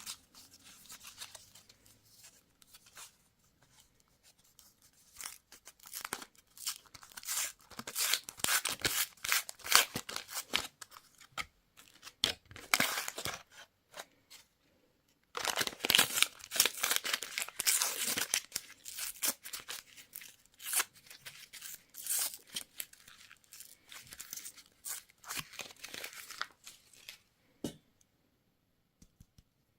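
Candy packaging being torn open and crinkled by hand in two long bouts of crackly tearing, with a short pause between them.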